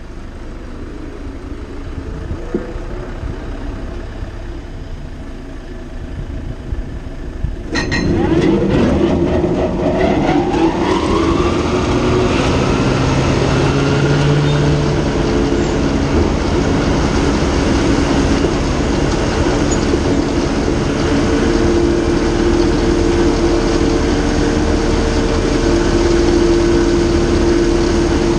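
John Deere tractor engine running with a mower behind it. About eight seconds in, the sound suddenly gets louder and a whine rises in pitch as the mower spins up. After that the tractor and mower run together in a loud, steady drone.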